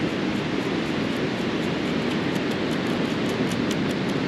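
Steady ocean surf and wind noise, with faint gritty ticks about halfway through as sand is shaken through a perforated metal sand scoop.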